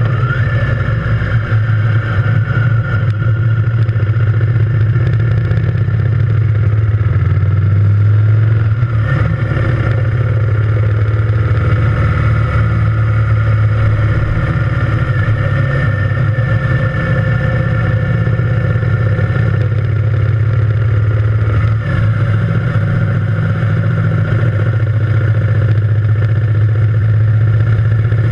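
Triumph Thunderbird Storm's parallel-twin engine running steadily at road speed on the move.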